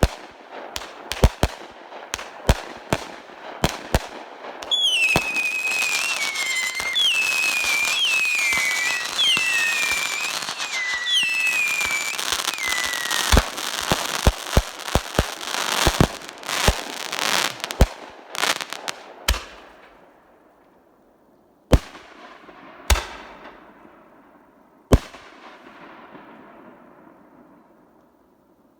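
Consumer fireworks going off: rapid sharp reports, with a dense middle stretch where whistles glide down in pitch about once a second. The barrage then thins to a few last separate bangs and a fading crackle.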